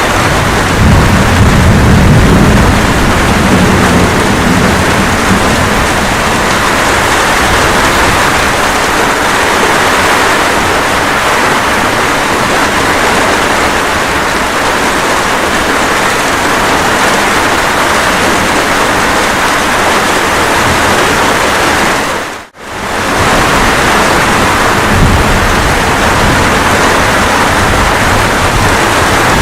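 Steady rain hiss with low thunder rumbling in the first few seconds and faintly again near the end. The sound cuts out for a split second about 22 seconds in.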